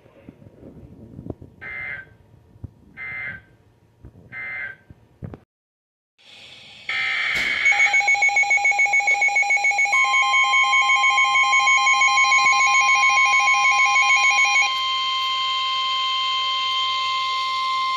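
Emergency Alert System tones: three short end-of-message data bursts, a short silence, then the next alert's pulsing electronic beeping alarm, joined about ten seconds in by the long steady NOAA Weather Radio warning alarm tone, which carries on alone once the beeping stops.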